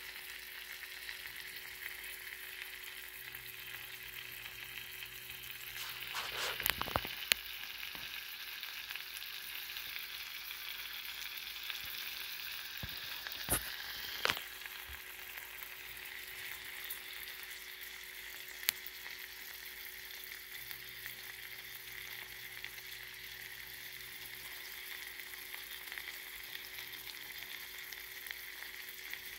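Salmon fillets frying in butter in a pan, a steady sizzle, with a few sharp clicks about a quarter and halfway through.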